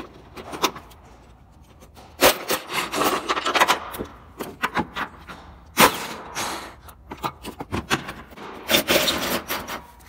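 Hand-tool work on the engine: metal clicks, clatter and scraping in several irregular bursts as bolts are undone and the engine mount bracket is worked loose.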